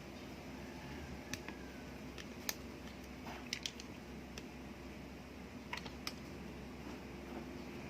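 A scattered handful of faint, sharp little clicks of a small tool working against the metal parts of a Bolex H-16 Reflex camera's side shutter button mechanism as a small bar is pulled up and out, over a steady low hum.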